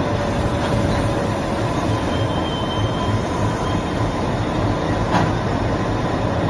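ALCO WDG-3A diesel-electric locomotive idling: the steady low throb of its 16-cylinder ALCO 251 engine, with a faint steady whine over it. A brief click about five seconds in.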